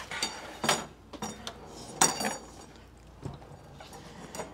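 Metal clinks and knocks as a 3D printer's base, with its metal bed plate and frame rails, is lifted out of its foam packing and handled; two louder clanks, about two-thirds of a second and two seconds in, ring briefly, followed by a few softer knocks.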